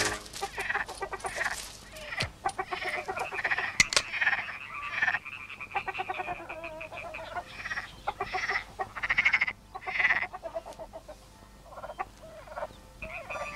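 A run of short, irregular animal calls, many in quick succession at first and thinning out after about nine seconds.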